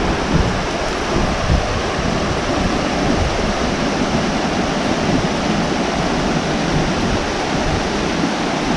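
Steady, loud rush of fast-flowing water.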